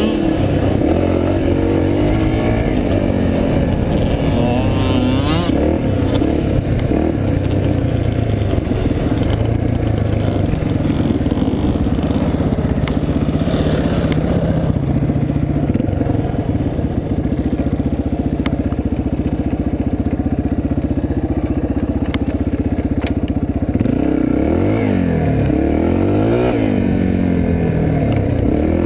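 Dirt bike engine heard from the rider's own bike while riding a trail, running at fairly steady revs through the middle, then rising and falling in pitch several times near the end as the throttle is worked.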